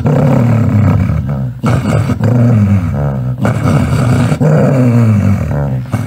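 A loud, deep angry growl, drawn out in several long stretches with brief breaks between them.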